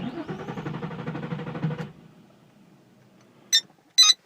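The 2003 Nissan 350Z's 3.5-litre V6 cranking over on the starter for about two seconds without catching, then the starter stops: a no-start, which the owner puts down to faulty aftermarket camshaft position sensors leaving no spark. Two short dash warning beeps follow near the end.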